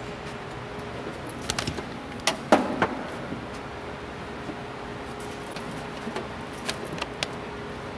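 Keys jangling and a car door being handled: a scatter of clinks and knocks, the loudest about two and a half seconds in, over a steady hum.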